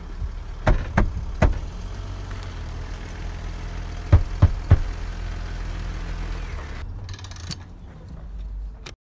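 A steady low rumble like a running vehicle engine, with two groups of three sharp bangs, about a second in and about four seconds in; the rumble thins out near the end and cuts off suddenly.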